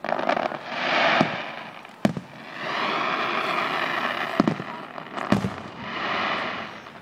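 Fireworks shells bursting in the sky with about four sharp bangs. Between the bangs, a hissing, crackling rush swells and fades three times.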